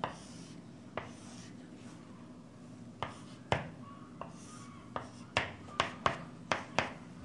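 Chalk on a chalkboard as a triangle is drawn: short scraping strokes and sharp taps, coming more quickly in the last two seconds.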